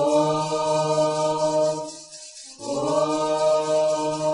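Afro-Brazilian chant to Xangô, sung without words being recognisable: two long held notes, the first for about two seconds, then a brief breath and a second held note.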